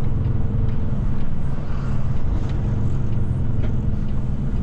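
Semi-truck's diesel engine running and road noise heard from inside the cab while driving: a steady low drone with a constant engine hum.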